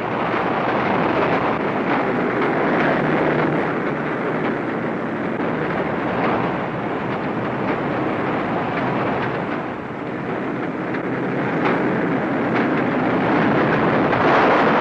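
Steady, dense running noise of tracked armoured vehicles, engines and tracks together, on an old newsreel soundtrack, with a few faint sharp cracks, one of them near the end.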